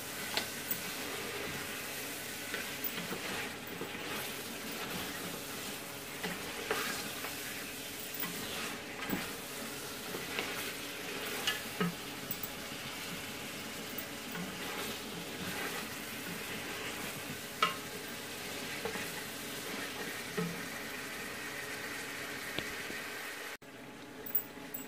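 Mutton frying in its masala in an aluminium pot: a steady sizzle, with a wooden spoon stirring and knocking against the pot now and then. The sizzle drops away suddenly about a second before the end.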